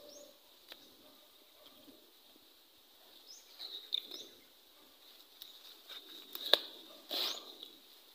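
Leaves and stems rustling and snapping as they are handled, with a sharp crack about six and a half seconds in and a short rustle just after. Faint short bird chirps sound in the background.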